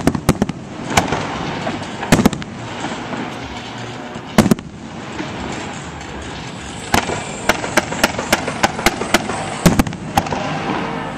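Aerial fireworks shells bursting: sharp bangs, a few scattered ones in the first half, then a quick string of about a dozen in the last few seconds, each with a short echoing tail.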